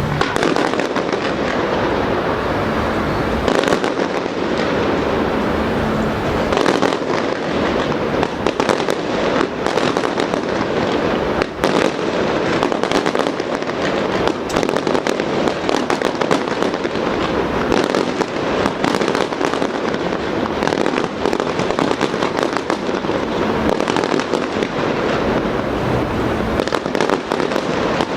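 Fireworks display: a dense, unbroken run of shells bursting, with rapid bangs and crackle one after another.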